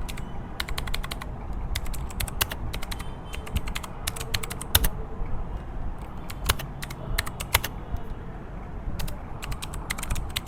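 Typing on a Gamdias Hermes E2 mechanical keyboard with clicky blue switches: a quick, irregular run of keystroke clicks, with a few sharper strikes about five and six and a half seconds in.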